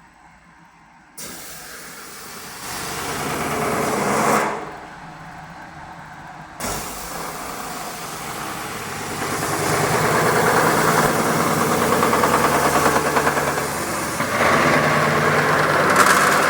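CNC metal spinning machine forming a 1.5 mm cold-rolled steel blank, the roller rubbing against the spinning sheet with a rough grinding noise. It starts about a second in, swells, breaks off about four seconds in, and comes back at about seven seconds, growing louder.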